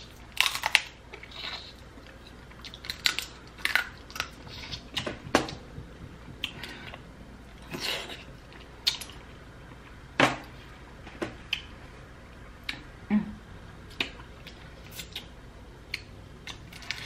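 Close-miked eating of a seafood boil: chewing, smacking and sucking on shrimp and snow crab, with irregular sharp clicks and brief crunchy crackles of shell.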